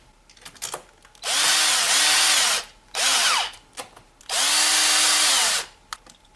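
Cordless drill-driver running in three bursts as it drives the four bolts of a bicycle stem's handlebar faceplate. The motor whine rises in pitch with each trigger pull and falls away as it stops, with a few light clicks in the pauses.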